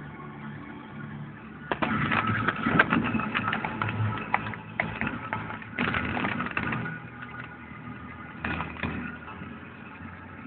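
Car cabin sound while driving, recorded on a phone: a steady low engine and road hum, broken by louder rattly, clicking stretches about two seconds in, around six seconds and again shortly before the end.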